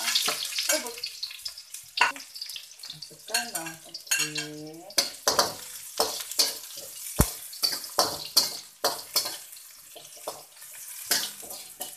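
Sliced red onion and garlic sizzling in hot oil in a steel wok, loudest in the first second, while a metal spatula scrapes and taps against the wok over and over as they are stir-fried.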